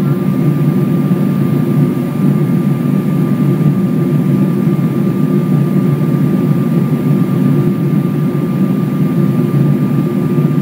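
Steady low drone of engine and airflow noise inside the cabin of a Boeing 777-200 descending, with a thin steady tone above it.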